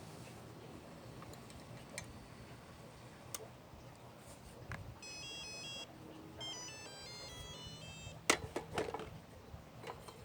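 Electronic beeping: a short run of alternating tones about halfway through, then a quick stepping series of tones, like a device's melody. A few sharp clicks follow near the end.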